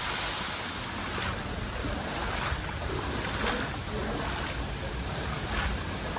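A steady rushing noise, with wind rumbling on the microphone, and faint footsteps about once a second from walking along the path.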